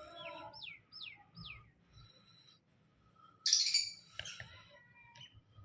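Budgerigars chirping: three quick falling whistles, then a louder harsh chirp about three and a half seconds in, with softer chatter between.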